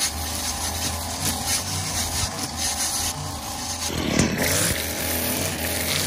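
Gas string trimmer running at speed, its spinning line cutting through tall grass and weeds. About four seconds in there is a louder, rougher stretch lasting under a second.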